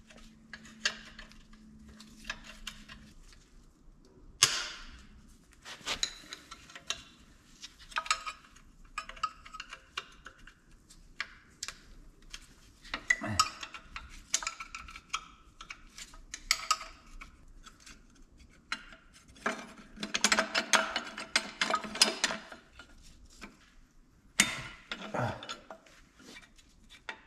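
Hand ratchet wrench clicking in short runs, with clinks of metal tools and parts, while bolts of the turbo bracket are undone on an engine on its stand. A longer, faster run of ratchet clicks comes about two-thirds of the way through.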